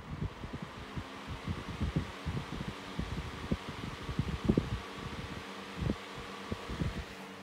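1970s Lyvia 8-inch desk fan running on its low speed: a steady whir of motor and blades that comes up to speed at the start. Irregular low thumps run through it, as the fan's breeze buffets the microphone.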